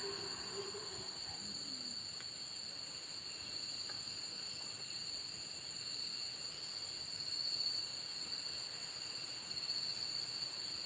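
Night insects, crickets, calling together in a steady chorus: several unbroken high-pitched trills at different pitches, holding constant.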